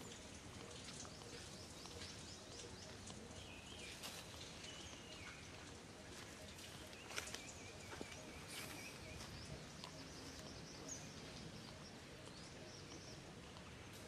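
Faint outdoor background noise with scattered small clicks and a few brief, faint high chirps.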